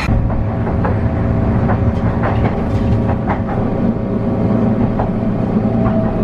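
Tram heard from inside the car: a steady mechanical hum with light knocks and rattles.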